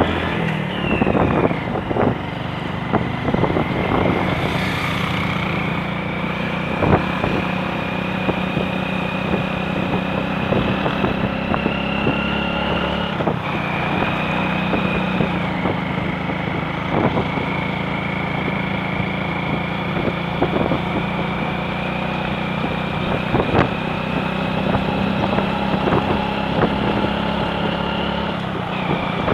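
Motorcycle engine running steadily while being ridden, heard from on the bike, with a thin whine that shifts pitch a couple of times about halfway through and occasional short knocks.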